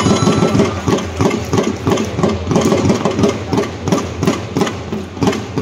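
Baseball cheering-section percussion starting suddenly and beating a fast, even cheer-song rhythm of about six strikes a second.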